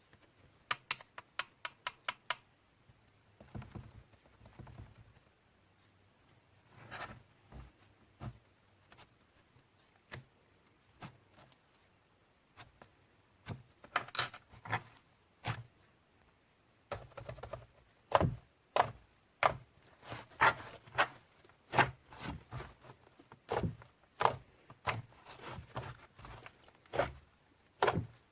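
Slime being worked by hand, making sharp clicking pops: a quick run of clicks at the start, scattered ones after, then a steadier stream of about two pops a second through the second half.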